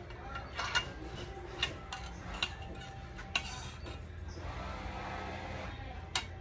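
Light metallic clicks and clinks, about five of them spaced roughly a second apart, from an air rifle and its pellets being handled.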